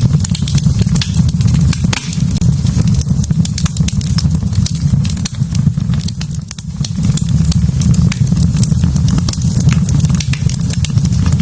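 Wood fire burning in a fireplace, crackling with many quick sharp pops over a steady low rumble.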